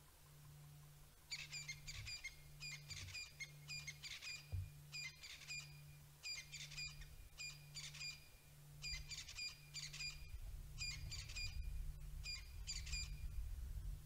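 A bird chirping in a quick run of short, repeated phrases, each a cluster of sharp high notes, starting just over a second in and going on until shortly before the end. A low rumble builds underneath in the last few seconds.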